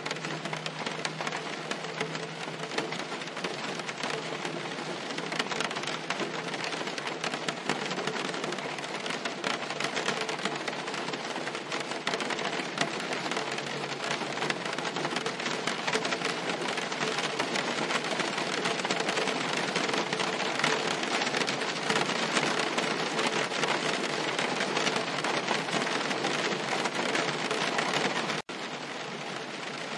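Steady rain falling on a car's roof and windshield, heard from inside the car as a dense patter of drops. Near the end the sound cuts out for an instant and comes back a little quieter.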